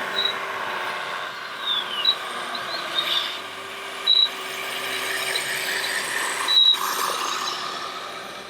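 Radio-controlled model trucks and construction machines running, a steady whine of small electric motors and gearing with a constant low hum. Short high-pitched beeps come now and then, and a brief falling squeak about two seconds in.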